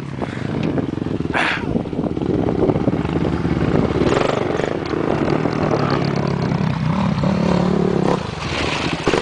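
Quad bike (ATV) engine running and revving, its pitch rising and falling with the throttle, over rough noise.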